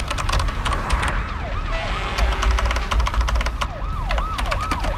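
An emergency vehicle siren sounding in quick rising-and-falling sweeps, coming in about a second and a half in. Under it are a low rumble and a rapid run of sharp typing clicks.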